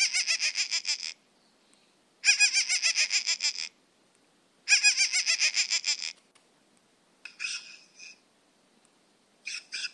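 A bird calling: three bursts of fast repeated notes, about a dozen to each burst, each lasting a little over a second with a gap of about a second between them, then two shorter, rougher calls near the end.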